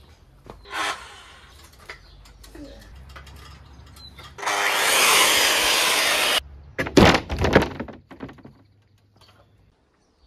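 Handheld electric saw cutting through the trailer's wooden roof trim for about two seconds, starting about halfway through and cutting off suddenly. A few sharp cracks and knocks follow right after.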